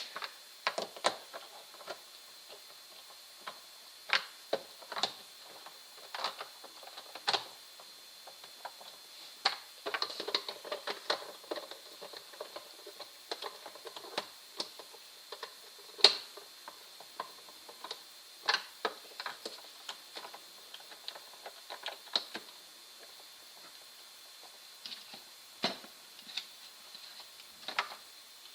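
Irregular clicks and taps of small screws and a screwdriver as screws are set back into the housing of a VIZIO sound bar, one sharper click about 16 seconds in.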